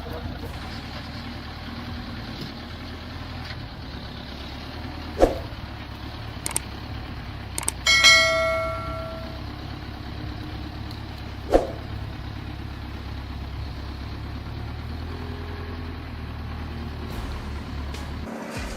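A steady low engine hum with several sharp knocks over it. One, about eight seconds in, is a loud metallic clang that rings on for about a second and a half.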